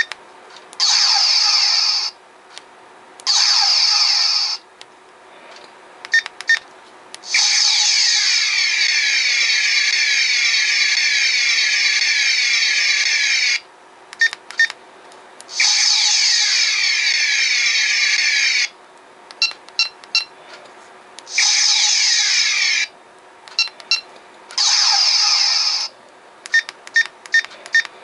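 Star Trek phaser sound effects from the GMProps Boomerang Phaser electronics upgrade board. Clusters of short electronic beeps as its buttons change the setting alternate with six bursts of buzzing phaser-fire sound, lasting from about one to six seconds; the longest comes near the middle.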